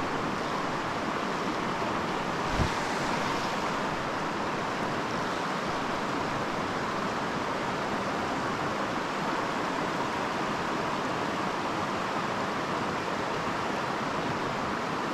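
Creek water rushing over rocks, a steady even rush, with a single low thump about two and a half seconds in.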